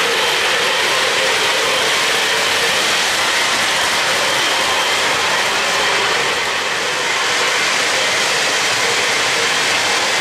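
O-gauge three-rail model trains running: a steady rolling noise of wheels on the rails and motors, dipping slightly about two-thirds of the way through.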